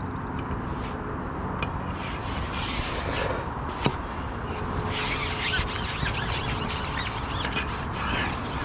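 Continuous rubbing and scraping of a fishing pole being shipped back and handled, with one sharp click about four seconds in.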